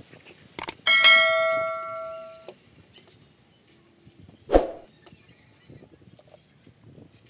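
Two mouse clicks, then a bright bell ding that rings and fades over about a second and a half: the sound effect of an on-screen subscribe-button and notification-bell animation. A single sharp knock follows about three and a half seconds later.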